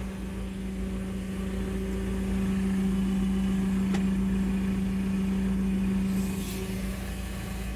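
JCB telehandler's diesel engine running steadily at idle, heard from inside the cab, with a strong steady hum that is a little louder through the middle. A single sharp click about four seconds in.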